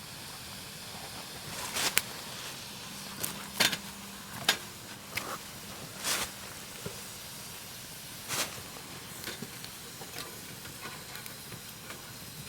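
Campfire burning with a steady hiss and a handful of sharp cracks and pops from the burning wood, loudest in the first nine seconds and then fading to small ticks.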